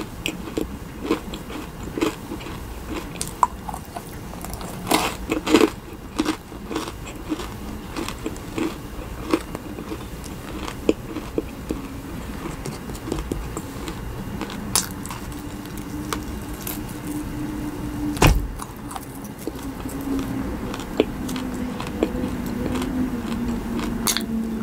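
Close-miked eating sounds: chewing and wet mouth clicks from soft sweets, first a macaron and then a marshmallow chick, with scattered sharp clicks. A low steady hum comes in a little past halfway.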